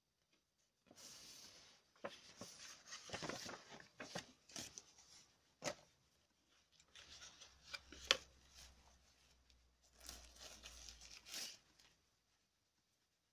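Paper rustling and rubbing as a folded instruction leaflet and a small card are handled, coming in several bursts with a couple of sharp taps.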